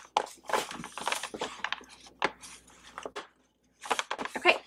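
Printed plastic mailer bag rustling and crinkling as it is handled and laid on a table, in short, irregular rustles with a brief hush about three and a half seconds in and a louder crinkle near the end.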